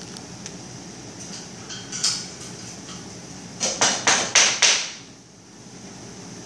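African grey parrot pecking and biting at a kitchen broom: a single knock about two seconds in, then five sharp knocks in quick succession a little past halfway.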